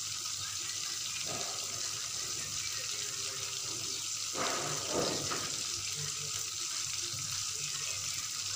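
Blended chili sambal paste sizzling and bubbling in oil in a wok over a low flame: a steady hiss, with a couple of brief louder pops about four and five seconds in.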